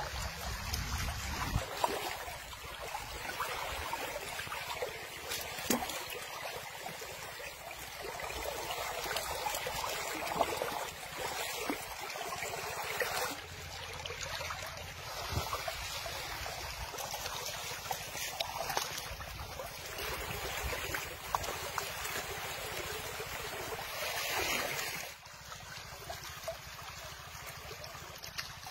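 Shallow river water running and lapping, a steady wash broken by occasional small clicks and knocks, which drops noticeably quieter near the end.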